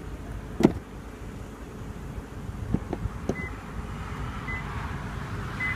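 2014 Lexus LS 460's power soft-close door latching: one sharp click about half a second in as the door reaches its first catch, then a few lighter clicks a couple of seconds later as the closer pulls it shut.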